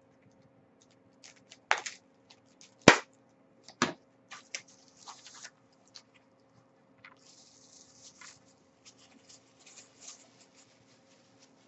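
Paper and plastic wrapping rustling and crinkling as a small item is unwrapped by hand, with a few sharp clicks and knocks, the loudest about three seconds in.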